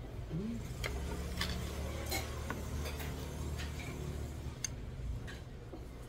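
Metal chopsticks and a spoon clicking and tapping against ceramic side-dish plates and a stainless steel rice bowl, as a handful of light, separate clicks, over a low hum that stops near the end.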